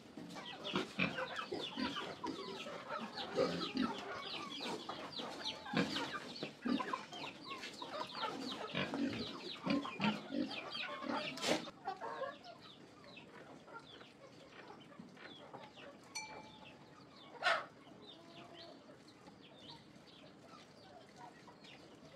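Chickens clucking, many overlapping calls for about the first half, then fewer and quieter. A sharp knock comes about halfway, and another one later.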